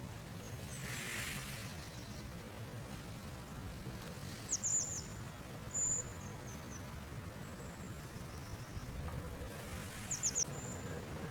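Small songbird giving short high chirps: a quick cluster of three or four falling notes about four and a half seconds in, a single held note shortly after, and another cluster near the end, over a steady low outdoor rumble.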